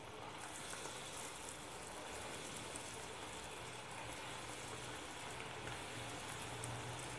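Battered potato balls deep-frying in hot oil over a medium-high gas flame: a steady sizzle with fine, constant crackling.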